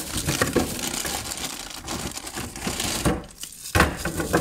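Plastic freezer bags of frozen tomatoes crinkling and rustling as they are handled in a freezer drawer, with two knocks of frozen items near the end.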